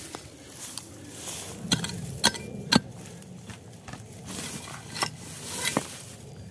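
Digging in stony ground with a hand tool while recovering a metal-detector target: five sharp knocks and scrapes at uneven intervals, the loudest about a third of the way in, over a steady outdoor hiss.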